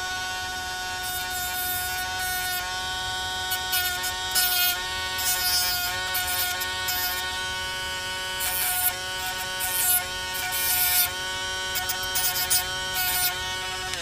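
Handheld rotary tool with a cut-off wheel running at a steady high whine, with repeated short gritty grinding bursts as the wheel is touched to the wire ends of a wound ferrite-bead choke. The motor stops at the very end.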